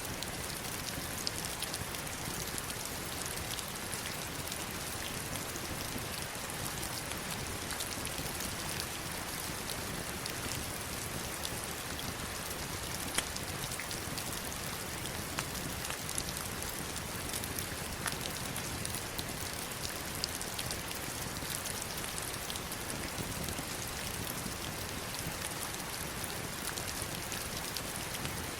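Heavy rain falling steadily on stones and river water: a dense, even hiss with single drops ticking sharply here and there.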